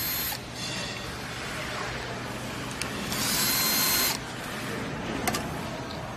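Cordless drill-driver backing out screws in short bursts with a high motor whine: one burst stops just after the start, another runs for about a second from about three seconds in. A sharp click a little after five seconds.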